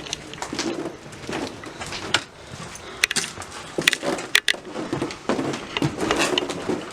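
Footsteps crunching over debris strewn on a floor: a run of irregular crunches and sharp cracks, the sharpest about three to four and a half seconds in.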